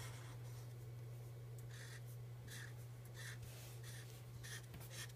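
Black Sharpie marker's felt tip drawing short strokes on paper: about six quick faint strokes from about two seconds in, over a steady low hum.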